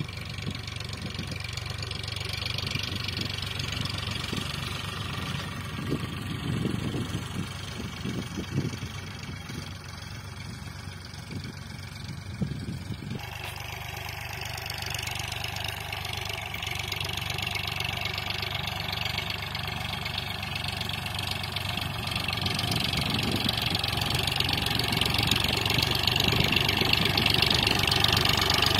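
Eicher 551 tractor's diesel engine running steadily under load as it pulls a levelling implement across ploughed soil, growing louder toward the end as the tractor comes close.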